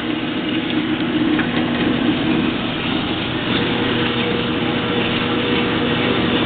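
Jet 8 x 13 inch horizontal band saw running, its 1.5 hp motor and four-speed belt drive turning the blade, a steady mechanical hum with a higher tone joining about halfway through.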